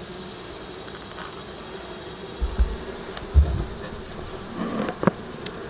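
Honey bees buzzing steadily around an open hive during an inspection, with a few short low thumps about two and a half and three and a half seconds in.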